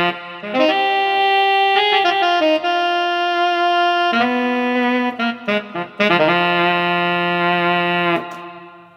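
Korg M1 synthesizer playing a saxophone-like lead patch: a phrase of sustained single notes, the last one released near the end and fading out.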